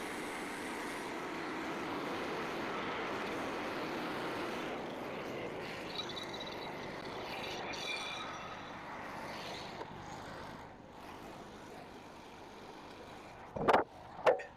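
Frontier OS27 bandsaw mill running, its blade cutting through a red oak log. The sound drops off about ten seconds in, and two sharp, loud knocks follow near the end.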